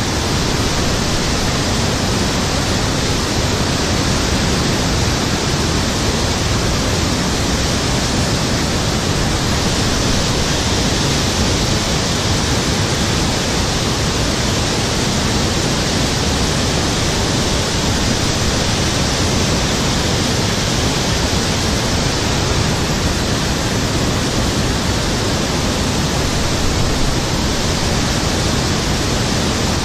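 Steady, loud rushing of river water, an even roar with no breaks or changes.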